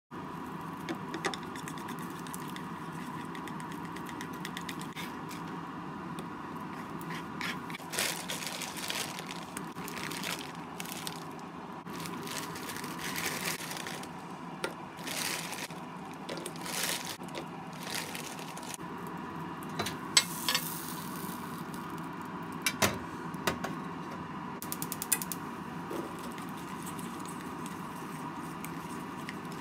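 Scattered light clicks and taps of chopsticks and a spoon against a bowl as egg and chopped ingredients are mixed, over steady background noise with a faint steady tone.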